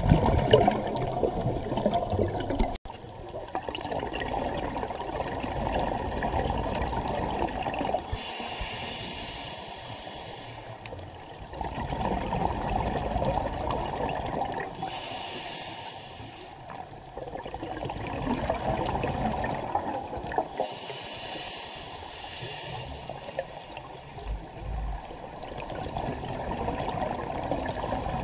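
Scuba regulator breathing heard underwater: a short hiss of inhalation alternating with a longer bubbling exhalation, repeating about every six seconds.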